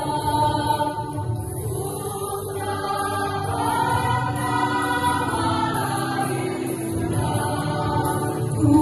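A choir singing, with long held notes that shift from chord to chord.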